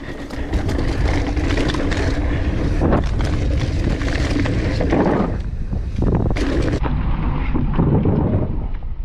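Downhill mountain bike descending a dirt trail: wind buffeting the chest-mounted action camera over a low rumble of tyres on the ground, with many short clattering knocks as the bike rattles over bumps. The sound changes abruptly to a duller tone about seven seconds in.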